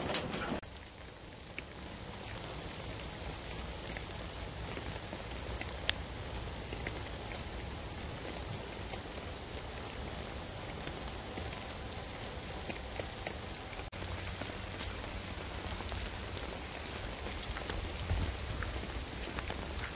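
Steady rain falling on the forest and the teepee canvas, an even hiss with scattered single drops. A brief louder burst comes right at the start.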